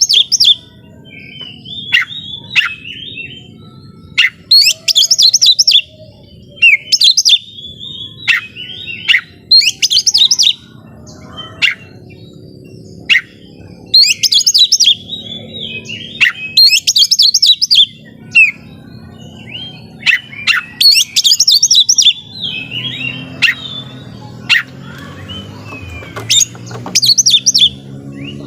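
Oriental magpie-robin (kacer) in full song: loud bursts of rapid, varied whistles and chattering notes every two to three seconds, with sharp single notes between the bursts.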